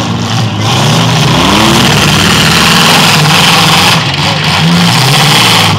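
Several demolition derby cars' engines running hard at once, their pitch repeatedly rising and falling as the drivers rev and back up, over a constant rough din.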